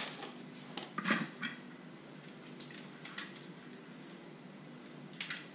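Faint handling noises as fishing line and a plastic spool of monofilament are picked up and moved: a few short clicks about a second in and around three seconds, then a brief rustle near the end.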